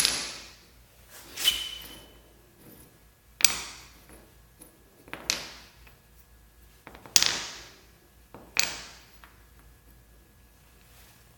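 Metal parts knocking and clanking against a hard surface: six sharp knocks a second or two apart, one with a brief high ring, then quiet for the last few seconds.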